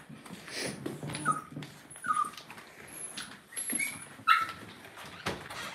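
Cavalier King Charles spaniel puppies whimpering: about five short, high squeaks that rise and fall in pitch, the loudest about four seconds in, over rustling and a few knocks.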